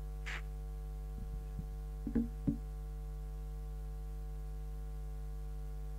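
A man coughing twice in short bursts into a tissue close to a handheld microphone, after a short breath near the start, over a steady electrical hum from the sound system.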